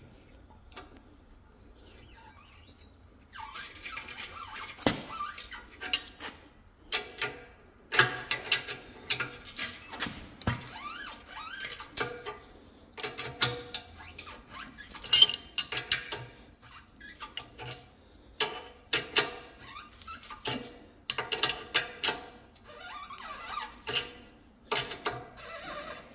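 Open-end wrench clinking and scraping against a steel hydraulic hose fitting as a female insert is tightened into a screw-on coupling held in a vise. The irregular metallic clicks and clanks, some ringing briefly, start about three seconds in as the wrench is turned and repositioned.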